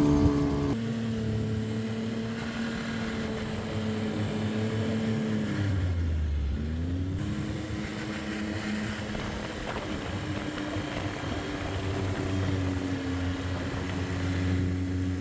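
Snowmobile engine running under way, its pitch dropping as it slows about six seconds in, then rising again as it picks back up.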